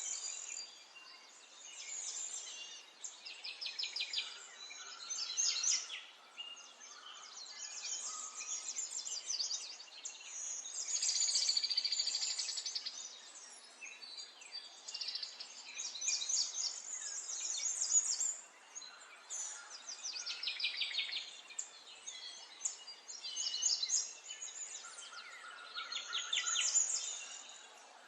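Small garden songbirds chirping and trilling in overlapping bouts of rapid high notes, with brief lulls between them, over a faint steady background.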